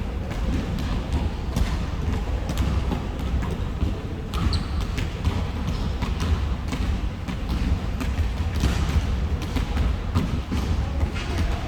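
Several basketballs bouncing on a gym floor, the knocks coming fast and at irregular intervals, over a steady low rumble.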